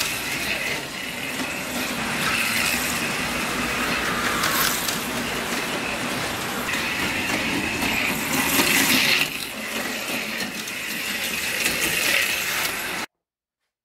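HO-scale AFX Tomy slot cars racing on plastic track, their small electric motors whining and wheels and pickups buzzing, swelling and fading as the cars pass by. The sound cuts off suddenly near the end.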